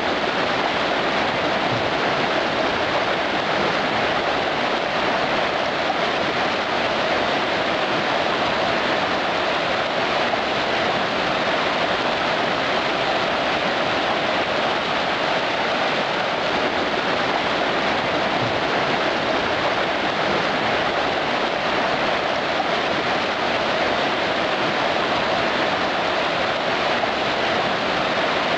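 Mountain river in spring flood, a steady loud rush of fast turbulent water.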